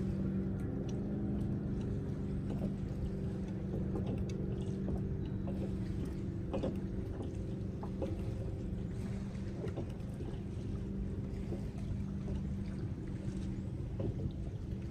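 Steady low hum of a boat motor running, with a few faint clicks scattered over it.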